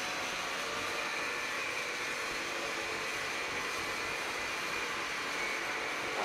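Hydraulic power unit of a press-type die spotting machine running steadily while the upper platen moves: a constant hiss with a faint high whine.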